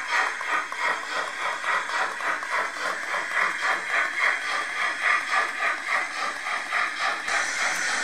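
H0 model steam locomotive's sound decoder playing an even run of exhaust chuffs, about two to three a second, with a steam hiss joining near the end.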